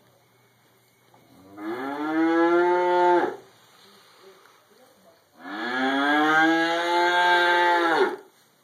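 Cow mooing twice: two long moos of about two and three seconds, each sliding up in pitch at the start, holding level, then dropping off at the end.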